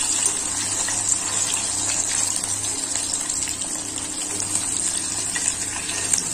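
Hot oil sizzling and crackling steadily as batter-coated anchovy fish deep-fry in a kadai. The fish is taken to be crisp and done once this oil noise dies down.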